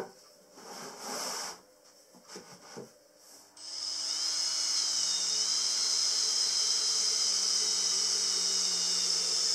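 Cordless drill-driver running steadily as it drives a small screw at the edge of the MDF panel on the pine frame, starting a little over a third of the way in. Before it, a knock and a short scrape as the panel is laid on the carcass.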